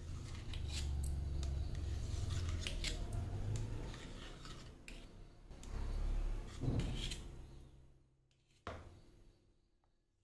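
A knife cutting a freshly set milk-cake sweet into pieces in its plate, scraping and rasping against the plate with many small clicks. It dies away about eight seconds in, and a single knock follows near the end.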